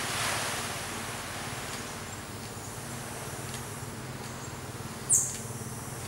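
Steady outdoor forest hiss with a faint low hum. About five seconds in comes a single short, very high squeak that sweeps downward, the loudest sound.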